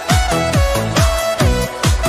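Electronic dance music: a steady kick drum about twice a second under a synth melody that slides between held notes.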